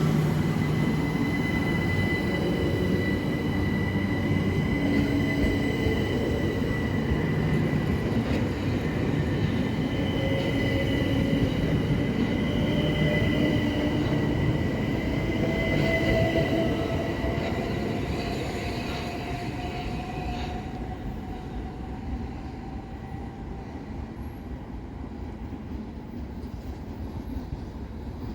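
Electric multiple-unit train running through the station: a loud rail rumble with steady high-pitched whining tones. About two-thirds of the way through, a whine rises in pitch and the sound fades as the train draws away.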